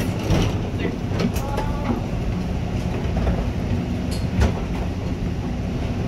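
Metra Nippon-Sharyo commuter cab car standing with its doors open: a steady low hum from the idling train, with a few footfalls and knocks of passengers boarding, the sharpest about four and a half seconds in.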